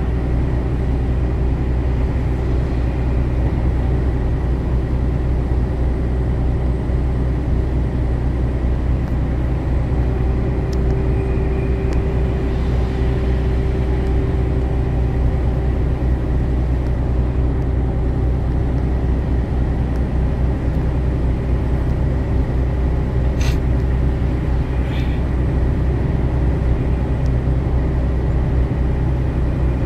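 Steady in-cab drone of a vehicle cruising on a highway: low engine and tyre noise with a constant hum. Two brief clicks come about two-thirds of the way through.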